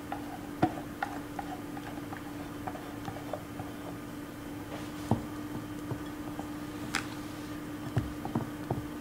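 Scattered light clicks and taps, irregular and unevenly spaced, from kitchen utensils at work, over a steady low hum.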